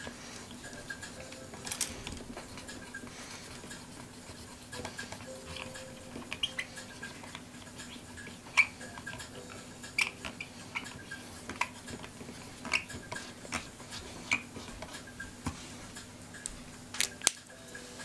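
Small plastic LCD digital alarm clock being handled, with its buttons pressed: irregular light clicks and taps over a steady low hum.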